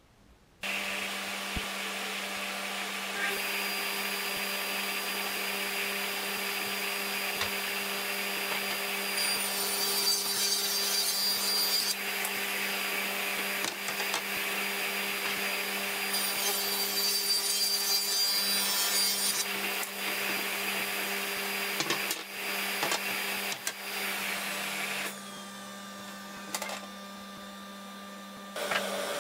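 Table saw with an overhead dust-collection guard running with a steady hum, cutting through a board twice, about ten and about sixteen seconds in. Near the end the saw is switched off and the blade winds down with a falling whine, while a quieter hum carries on.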